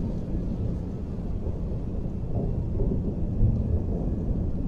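A low, steady rumbling drone, with a slight swell about three and a half seconds in.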